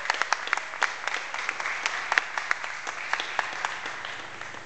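Audience applauding, the claps thinning out and fading away toward the end.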